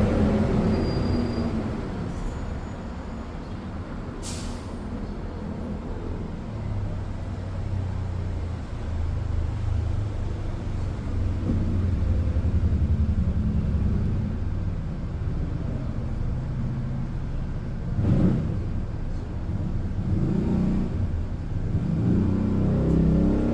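A Kia Niro Hybrid running with a steady low hum during an air-conditioning refrigerant recharge, with a brief hiss about four seconds in.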